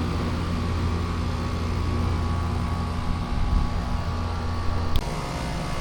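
Central air-conditioning condensing unit running: a steady low hum with a fan's rush over it. A click about five seconds in, after which the hum is lower.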